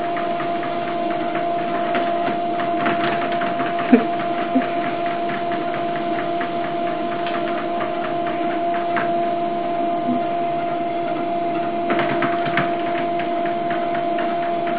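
Electric treadmill running: a steady motor hum with a fast, fine ticking from the moving belt, and a few louder knocks about four seconds in and again a few seconds before the end.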